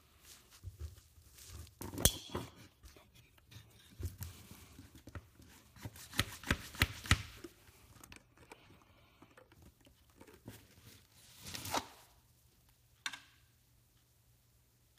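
Handling noises of Striyker F1 sunglasses pressed flat against a workbench: sharp plastic clicks and knocks, a quick run of four about halfway through, and a short swelling scrape near the end.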